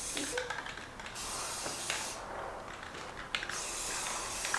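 Aerosol spray can hissing in bursts of about a second, with short pauses between, as primer or paint is sprayed on.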